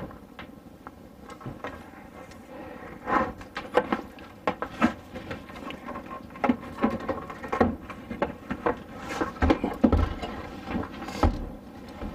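Irregular clicks, taps and knocks of hand work on a telescoping dinette table stand as its height is set, with a few dull thumps near the end.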